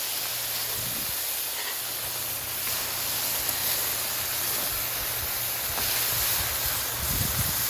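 Burger patties and buttered bread sizzling steadily on a Blackstone flat-top griddle, with a faint low steady hum beneath.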